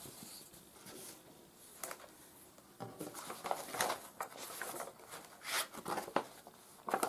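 Paper rustling and crinkling as a large cross stitch pattern chart and kit booklet are unfolded, shifted and laid flat on a table, in irregular bursts that come thicker in the second half.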